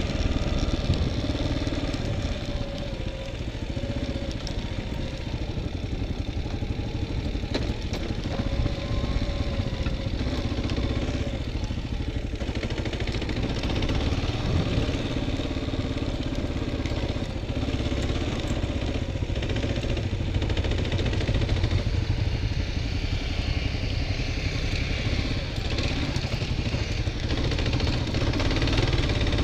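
Dual-sport motorcycle engine running steadily while riding a dirt trail, its note rising and falling a little with the throttle, over a continuous low rumble.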